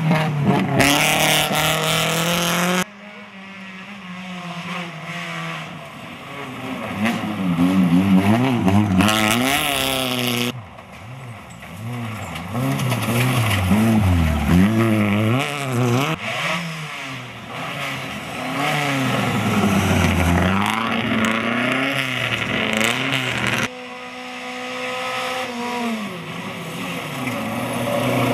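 Rally car engines revving hard through gravel corners, pitch climbing and dropping again and again with throttle and gear changes. The sound switches abruptly three times as one car's clip cuts to the next.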